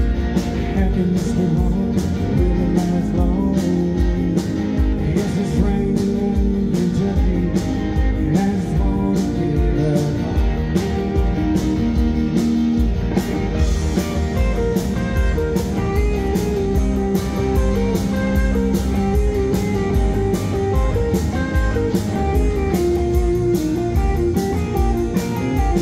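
Live blues-rock band playing through a PA: electric guitars, bass and drums with a steady beat, heard from among the audience in a large hall.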